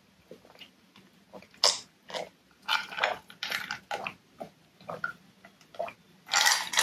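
A person gulping an iced drink from a glass mug in a string of short, close-miked swallows, about two a second. A louder noisy burst comes near the end.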